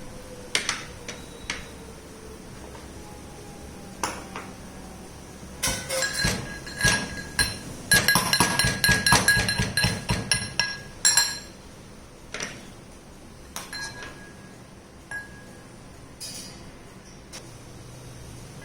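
Pestle pounding ginger and basil leaves in a mortar, with clinking, ringing knocks. There are scattered blows at first, a run of rapid blows for several seconds midway, then a few slower knocks.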